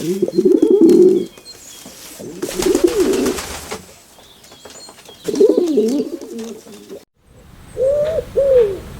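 Pigeon cooing: three bouts of low, warbling coos a couple of seconds apart. After a brief break near the end, shorter and clearer coo notes that rise and fall.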